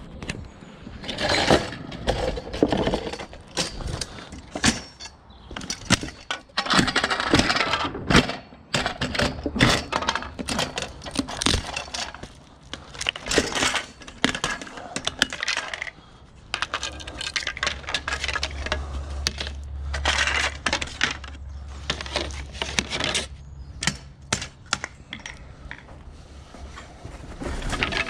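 Wooden slats being wrenched out of a metal bed frame's plastic slat clips and tossed onto hard ground: repeated clattering knocks of wood, snapping and rattling of the metal frame. A low steady rumble sits underneath for several seconds in the second half.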